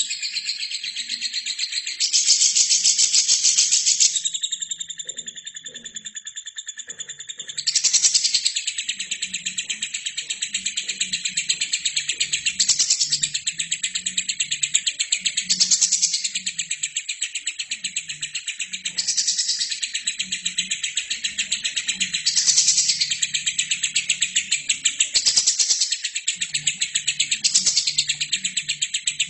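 Lovebird singing a long, unbroken chattering trill (the "ngekek" song prized by Indonesian keepers), made of very rapid ticking notes that swell louder every few seconds.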